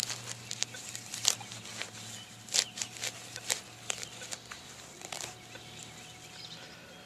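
Metal hand digger cutting and scraping into turf and soil: a string of sharp strikes and scrapes, then loose dirt being pulled out of the hole by gloved hands. A low steady hum runs underneath and stops about five seconds in, when a faint higher steady tone takes over.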